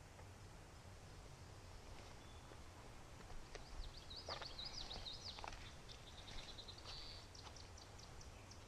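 A songbird singing a quick run of chirps and sweeping notes with a short trill, starting about three seconds in, over a faint low rumble of outdoor ambience.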